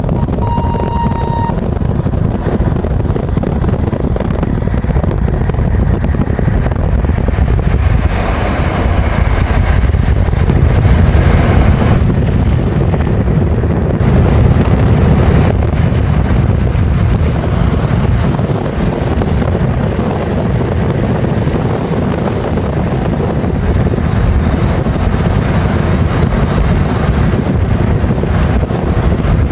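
Loud, steady road and wind noise inside a moving car as it keeps pace alongside a train. About half a second in, a short high-pitched tone sounds for about a second.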